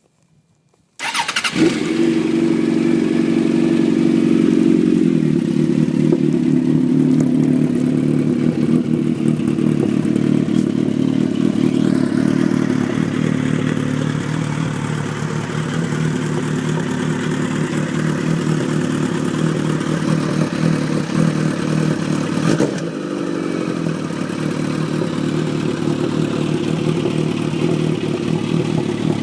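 Suzuki GSX1400 motorcycle's inline-four engine breathing through an aftermarket carbon-titanium silencer, starting up about a second in and then idling steadily. A single click comes late on, with a slight drop in the exhaust note.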